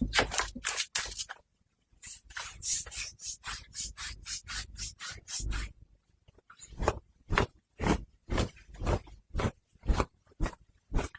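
Close-miked ASMR scratching and rubbing on fabric, in short rasping strokes. A run of quick, lighter strokes follows a brief pause; then, after a second pause, come slower, louder strokes at about two a second.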